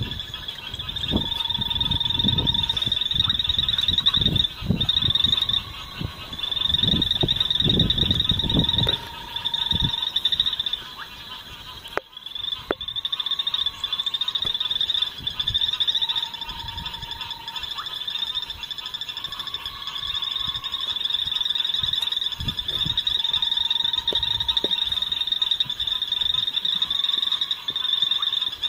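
Night chorus of frogs: a continuous high-pitched pulsing trill, with a lower steady note about a second long repeated every few seconds. Low rumbling bursts run through the first ten seconds or so.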